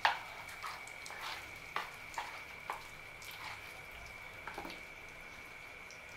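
A small test drop of wheat-flour and pumpkin batter frying in hot oil in a kadhai: scattered crackles and pops, the loudest right at the start, showing the oil is hot enough to fry.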